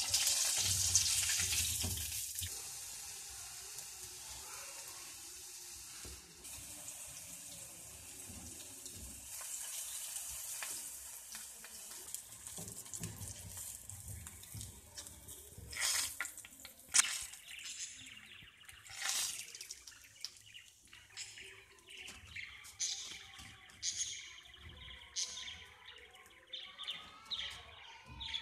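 Battered fish deep-frying in hot oil in a wok, sizzling with a steady hiss that is loudest in the first couple of seconds and dies down over the first half. Later come scattered sharp knocks and clicks of a wooden spatula against the pan.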